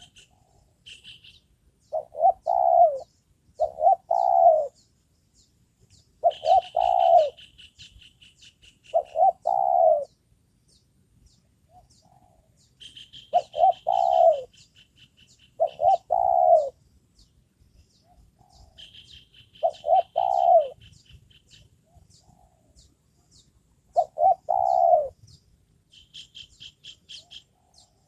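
Spotted dove cooing: about eight short phrases of two or three notes each, a few seconds apart. Bursts of a fast, high, pulsing trill sound between the phrases.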